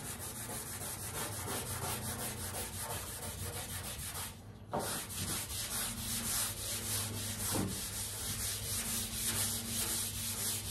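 Sandpaper rubbed by hand over the primer on a steel car fender in quick back-and-forth strokes, about three or four a second, with a short pause about four seconds in. The primed panel is being scuffed so that body filler will bite into it.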